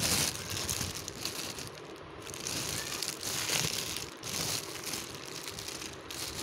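Clear polythene bag crinkling as it is handled and pulled about over a pile of roasted clay chunks, in irregular spells, loudest right at the start and again around the middle.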